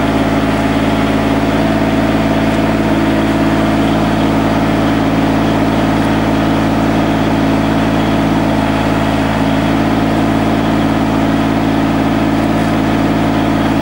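Mini excavator's engine running steadily at one speed.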